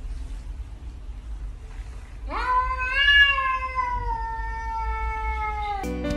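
Domestic cat giving one long, drawn-out meow about two seconds in, lasting some three and a half seconds, rising at the start and then slowly falling in pitch. Plucked-guitar music cuts in near the end.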